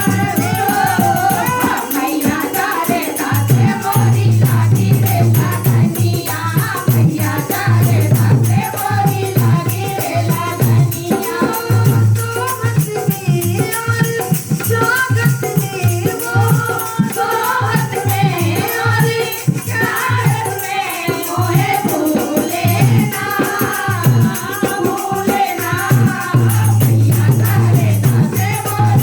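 A Hindi devotional bhajan sung by a group of voices, with steady dholak drumming and a jingling rattle keeping the beat.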